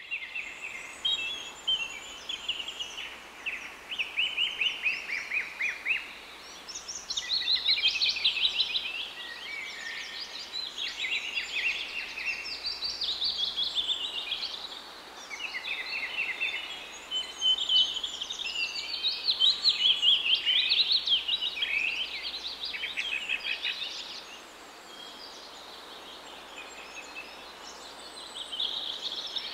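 Birdsong: a chorus of birds chirping and trilling, many quick overlapping calls, easing off for a few seconds near the end.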